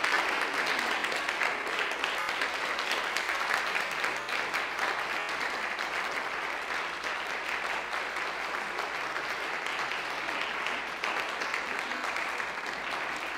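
Audience applauding: dense, steady clapping that slowly tapers off.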